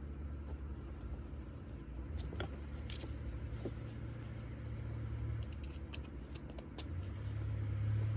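Scattered light clicks and taps of hands handling a watch and its packaging, over a steady low hum that grows louder near the end.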